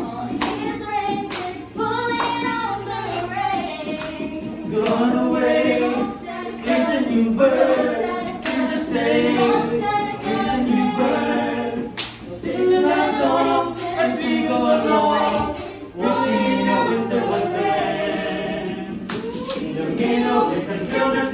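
A small group of men and women singing together a cappella, with a few sharp claps or snaps in time.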